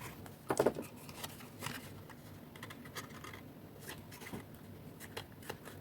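Cardstock being handled and pressed together while a glued box tab is attached: faint paper rustles and light taps, the loudest about half a second in.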